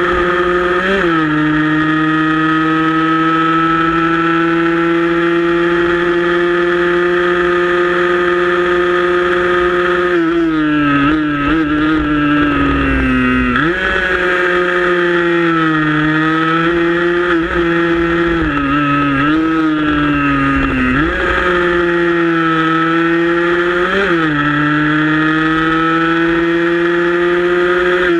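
Small 115 cc-class racing motorcycle engine heard from on board, held at high revs with a slowly rising pitch for about ten seconds, then dropping and climbing again several times as the throttle is eased and reopened through the bends. A low rush of wind on the microphone runs underneath.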